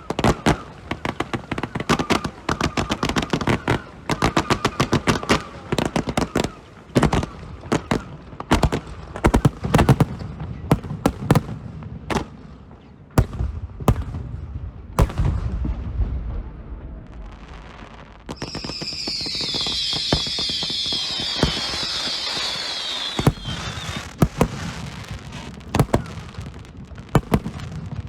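Fireworks display: aerial shells bang in rapid, irregular succession. About two-thirds of the way in, a high, dense sizzling runs for about five seconds, and then the bangs resume.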